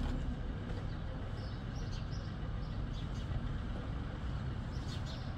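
4x4 vehicle driving, a steady low rumble, with short high chirps scattered through it.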